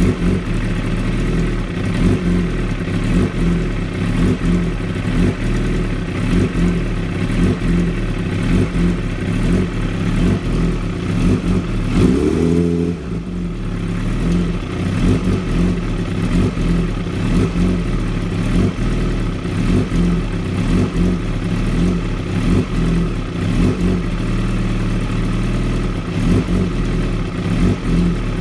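2016 Kawasaki ZX-10R's inline-four engine idling roughly and unevenly, a symptom the owner calls a very rough idle. About twelve seconds in, the revs briefly rise and fall back.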